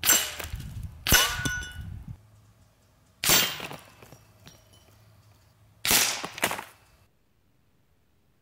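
Four or five sharp clangs of air rifle pellets striking small metal silhouette targets, each ringing briefly as it fades, spaced one to three seconds apart. The .25 caliber PCP rifle's own shot report is folded into each hit.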